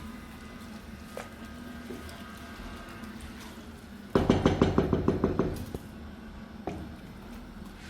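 A spoon stirring rice and water in a cooking pot. About four seconds in it knocks rapidly against the pot for about a second and a half, then gives a few single knocks.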